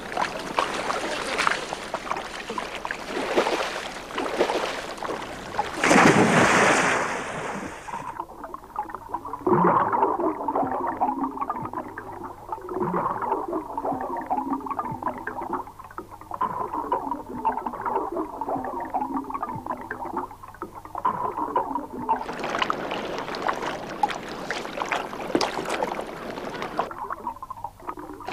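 Surf and splashing water for the first several seconds, loudest around six seconds in. Then a long stretch of a low, steady drone with a pattern that repeats every couple of seconds, before splashing water noise returns near the end.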